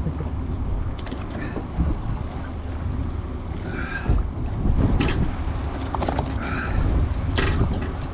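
Fishing boat's engine running with a steady low rumble and wind buffeting the microphone, with a few scattered knocks on deck.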